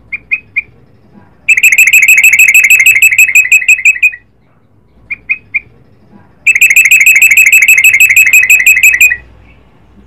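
Yellow-vented bulbul (trucukan) singing: three short high notes, then a long, fast trill of evenly repeated notes lasting over two seconds, the long rapid run that bird keepers call ropel. The same phrase comes twice.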